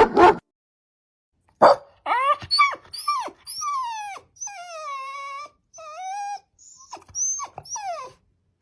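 A dog barks once sharply, then lets out a string of high whines and yelps that slide down in pitch, with one longer drawn-out whine in the middle.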